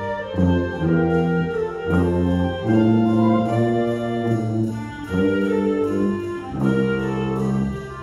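High school concert band playing, led by low brass, with held chords that change every second or so.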